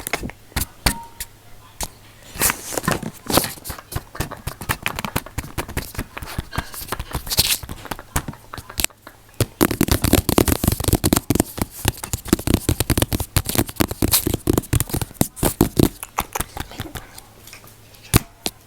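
Close-miked ASMR finger tapping and poking on the camera, a fast irregular run of sharp clicks and taps that thickens from about halfway through.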